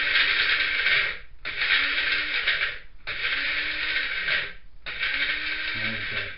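Small electric blade spice grinder run in pulses, whirring through toasted whole spices (fennel seed, peppercorns) to turn them into a fine powder. About four bursts of a second and a half each, with the motor briefly cut and a low falling hum as it slows between them.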